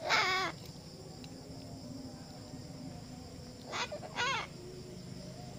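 Pet parrot calling three times in short bursts with falling pitch: once at the start, then twice close together about four seconds in.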